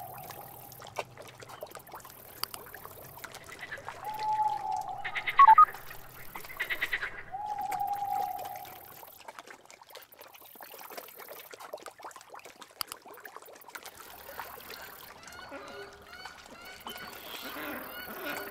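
Wetland nature soundscape: water trickling, with three long, level calls and a loud short chirping burst about five seconds in, then geese honking repeatedly in the last few seconds.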